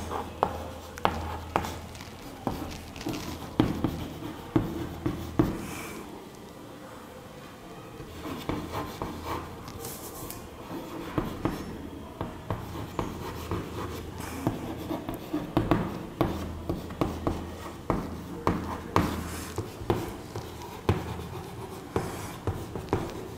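Chalk writing on a chalkboard: quick taps and scratches as letters and numbers are formed, with a quieter pause of a couple of seconds about six seconds in.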